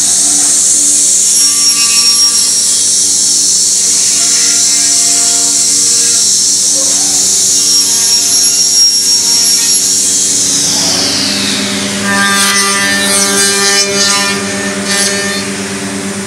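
Bacci Master CNC machining centre's router spindle cutting wood, a loud high whine with the hiss of the cut. About ten seconds in the whine glides down in pitch as the spindle winds down, leaving a steadier, lower machine hum.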